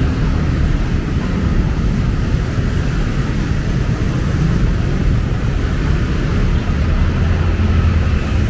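Road traffic, mostly motorcycles with some cars, a steady loud rumble with a deeper drone swelling near the end.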